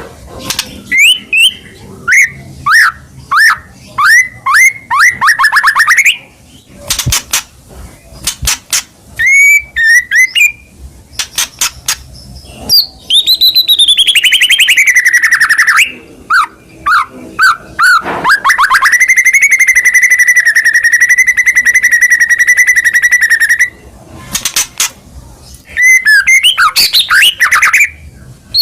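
White-rumped shama (murai batu) singing a loud, varied song of clear whistled slurs and dry rattling trills. About halfway through comes a long whistle sliding downward, then a steady buzzing trill held for about five seconds.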